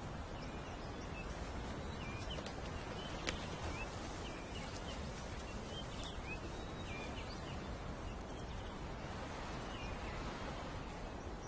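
Outdoor natural ambience: a steady background hiss with many short, faint high chirps from small birds or insects, and a single sharp click about three seconds in.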